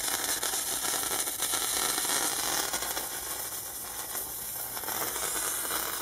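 Electric arc burning between two carbon rods fed by a fluorescent-light ballast, hissing steadily. The rods are still soaked with zinc chloride electrolyte, which is leaching out as they heat.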